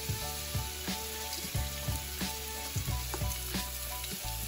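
Sliced onions sizzling in hot oil in a stainless steel wok, a steady hiss broken by frequent small crackles and pops.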